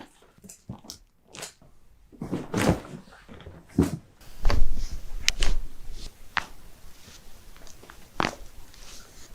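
Sounds of a hands-on chiropractic adjustment: the patient's body and clothing shift against the treatment table, with the heaviest movement about four and a half seconds in. Scattered sharp clicks come throughout, a close pair just after the heaviest movement.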